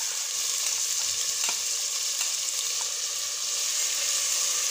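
Finely chopped onions sizzling in hot oil in a stainless steel pressure cooker: a steady high hiss, with a few light taps and scrapes of a spatula stirring them.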